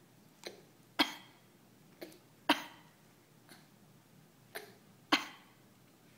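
A baby coughing in short, sharp little coughs, mostly in pairs, a weaker cough followed by a stronger one, three times over.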